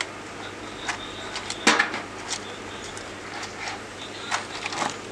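Plastic clicks and knocks from a computer keyboard being handled and opened up, about six irregular ones, the loudest a little under two seconds in.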